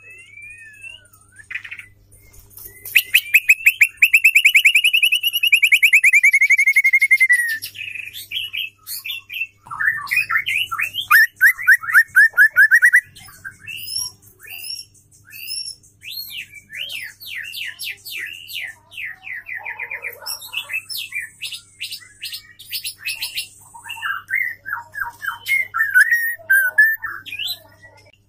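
Female white-rumped shama singing in phrases of fast rattling trills and sharp whistled notes. One long trill rises and falls, a second trill comes about ten seconds in, and a quick run of chips follows, with a faint steady hum underneath.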